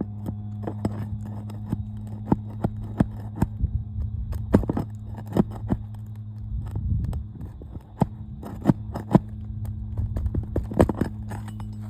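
A tool scraping and prying at roof shingles as they are worked loose from their nails, making irregular sharp scrapes and clicks. A steady low hum runs underneath.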